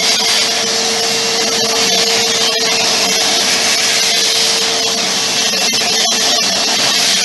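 Electric power sander running at a steady speed, a constant motor hum under the hiss of the abrasive, sanding back paint and filler.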